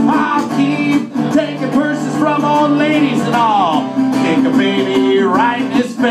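A man singing over his own steadily strummed acoustic guitar, his voice sliding up and down through several long notes between lines.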